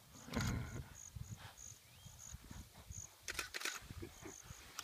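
Insects chirping over low wind rumble on the microphone: short high chirps a few times a second. There is a louder low buffet about half a second in and a cluster of sharp clicks a little past three seconds.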